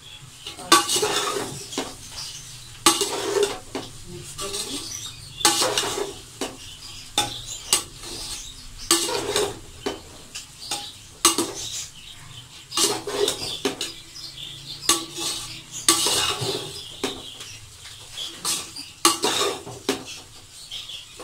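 Metal slotted spatula scraping and knocking against the sides of an aluminium cooking pot as a potful of fried rice is tossed and mixed, in repeated irregular strokes roughly one a second.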